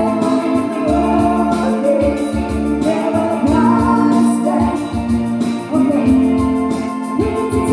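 Music: a sung melody over instrumental backing with a steady beat.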